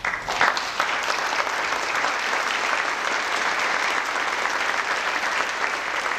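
Congregation applauding: many hands clapping together, starting suddenly and keeping on at a steady level.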